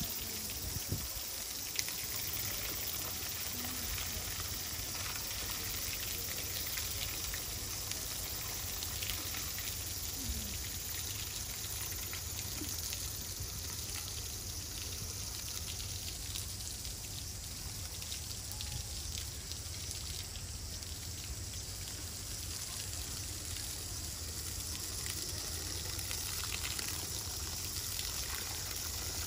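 Water jet from a hose spraying and splattering onto an elephant's head and body: a steady, continuous hiss of spray.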